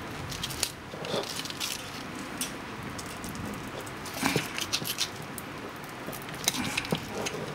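Handling noise from an electric polisher's backing pad being twisted by hand on its threaded spindle: scattered light clicks and knocks of plastic and metal, in a few short clusters about a second in, about four seconds in and near the end. The pad is screwed on too tight to come off by hand.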